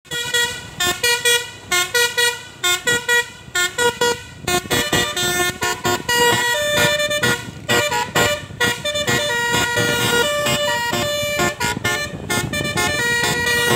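Bus 'telolet' Basuri multi-tone horn playing a tune: short staccato toots at first, then from about four and a half seconds in a faster, unbroken run of notes changing pitch.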